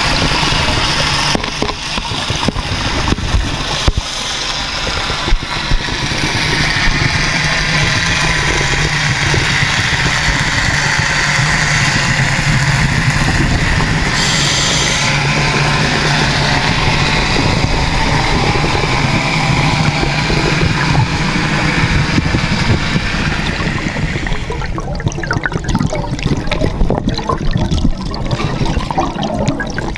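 Underwater sound picked up by a submerged camera: continuous rushing and bubbling water over a steady low hum, thinning out about two thirds of the way through.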